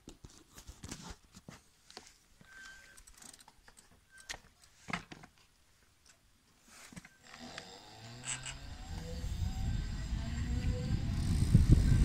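Scattered light clicks and knocks for the first several seconds. About seven seconds in, an electric bike pulls away: a faint motor whine rises in pitch, and a low rumble of tyres and wind builds as it speeds up.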